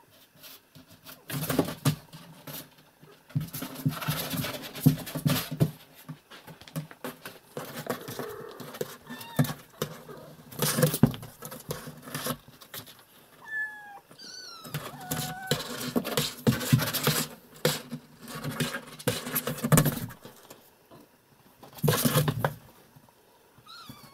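A mother cat scrabbling and clawing at a cardboard box, in repeated bursts of scratching and rustling, as she tries to get her kittens out of it. A few thin, high kitten mews come about halfway through.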